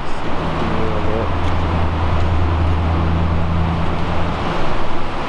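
Steady rushing noise inside a stone and corrugated-metal tunnel, with a low steady hum that sets in about half a second in and drops away near the end.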